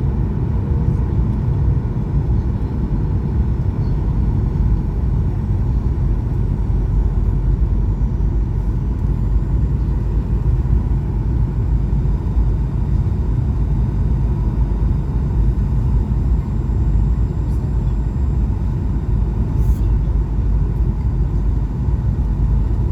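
Steady cabin noise of a Boeing 737-800 in flight, heard from a window seat: an even rumble of its CFM56-7B engines and rushing air, with a faint steady whine above it.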